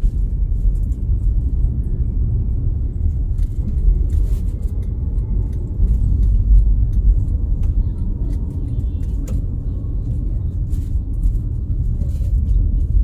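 Steady low rumble of road and engine noise inside a moving car's cabin, with faint scattered ticks and rattles.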